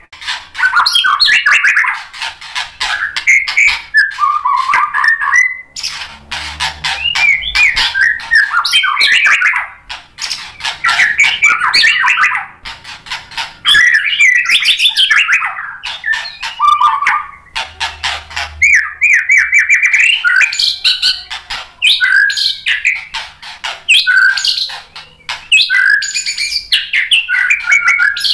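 White-rumped shama (murai batu) singing a rapid, varied song of whistles, trills and clicking notes, delivered in several long bursts with brief pauses between them.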